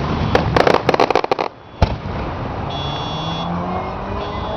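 Fireworks going off: a rapid run of crackling bangs for about the first second and a half, a single bang just before two seconds in, then a steady rumbling hiss.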